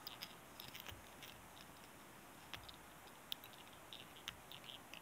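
Faint, irregular light ticks and crackles of tying thread being wrapped under tension with a bobbin, binding a clump of elk hair onto a dry-fly hook, with a few sharper ticks in the second half.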